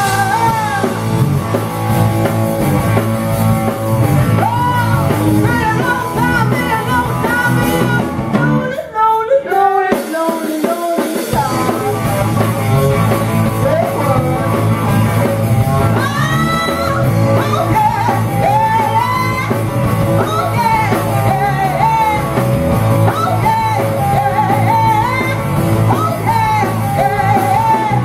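Live rock and roll band playing, with a woman singing lead over electric guitar, bass guitar and drum kit. About nine seconds in the band drops out for a couple of seconds while her voice carries on, then comes back in.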